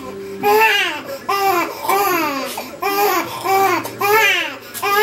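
Baby crying in short, rhythmic wails, about two a second, while her stuffy nose is being cleared with a nasal aspirator.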